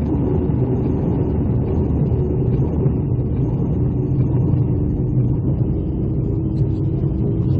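A steady, dense low rumble with no clear rhythm, starting abruptly just before and holding an even level.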